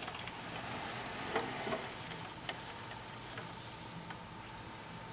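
A few light clicks and taps, scattered irregularly, over a faint steady hum.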